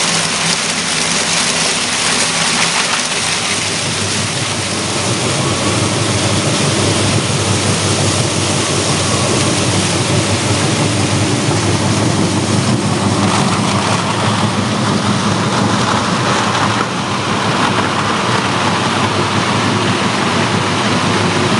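Plastic film recycling washing line running: a steady, loud rush of water churning with shredded plastic film, over the machinery's running noise.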